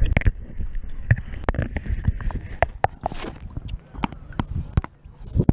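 Water splashing and sloshing around a handheld camera at the sea's surface, with many irregular sharp knocks and rubs of the hand on the camera as the swimmer moves.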